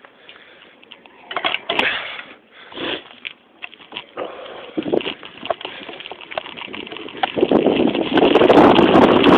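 Bicycle rolling downhill over a rough gravel and rock track: irregular knocks and rattles as the bike jolts. Wind rushing over the microphone builds up over the last couple of seconds as the speed rises.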